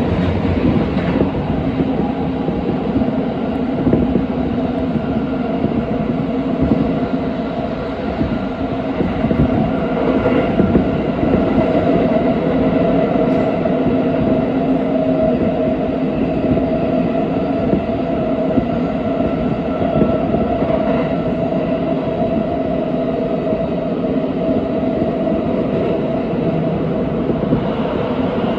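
Tokyo Metro 17000 series subway train running at speed through a tunnel, heard from inside the passenger car: a steady, loud running noise of wheels on rail with a few held tones over it.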